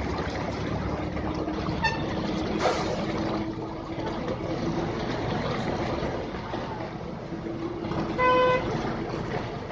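Steady traffic noise with a low engine hum, a faint short horn toot about two seconds in, and a loud vehicle horn honking once for about half a second near the end.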